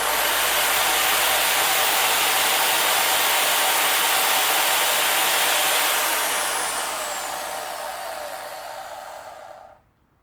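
Electric drill spinning a polishing mop against a metal motorcycle footrest holder at full speed, then let go of about six seconds in, its pitch falling as it winds down to a stop near the end.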